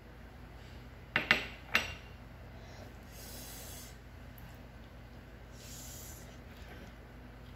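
Handling noise close to the microphone. About a second in there are three sharp knocks in quick succession, then later two soft rubbing swishes, over a low steady hum.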